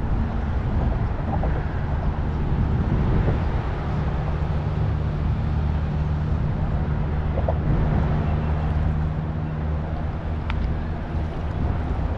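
An engine running at a steady speed, a low drone with an even hum.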